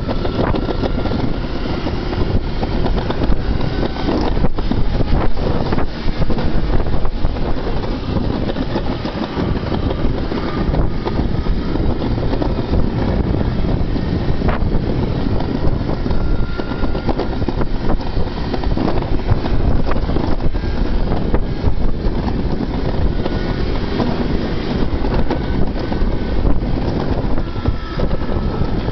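Summer bobsled running down a stainless-steel trough track: a steady, loud rumble and rattle of the sled's wheels on the metal, with wind buffeting the microphone and brief high squeaks now and then.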